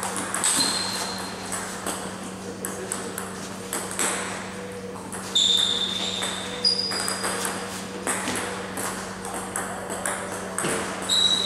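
Table tennis ball clicking rapidly and irregularly off bats and table during a rally, with more ball clicks from neighbouring tables. A few short high squeaks come through, and a steady low hum sits underneath.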